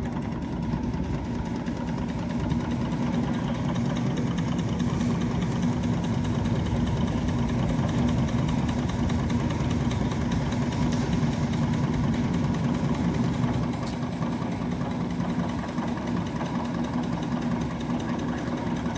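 Steady engine hum with a constant low tone, slightly quieter from about two thirds of the way through.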